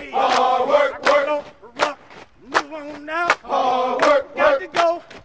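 A group of cadets chanting a military marching cadence in unison: short, shouted phrases in a steady rhythm.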